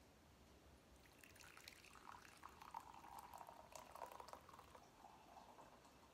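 Hot chaga tea poured from a green enamel kettle into a ceramic mug. It is a faint trickling stream that starts about a second in and tapers off near the end.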